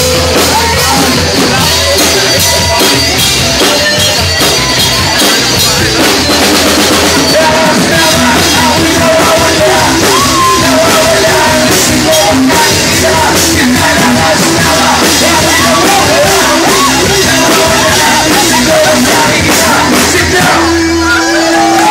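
Rock band playing live, with drums, electric guitar and bass under a lead vocal. Near the end the drums drop out and a single held note rings on as the song closes.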